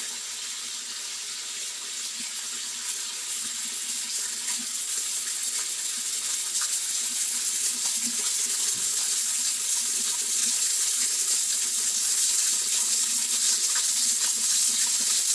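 Running water hissing steadily, slowly growing louder.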